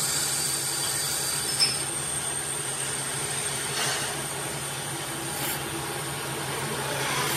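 Metal lathe turning a cast-iron brake disc while the cutting tool faces its surface: steady machining noise with a thin high whine over the motor's hum, and a short click about one and a half seconds in.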